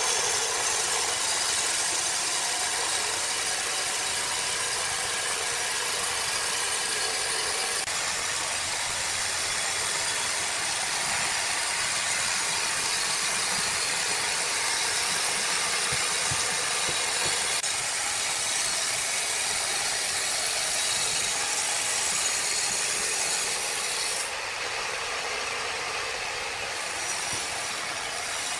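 Sawmill machinery running steadily, with the saw cutting timber. The high hiss drops away near the end as the level falls a little.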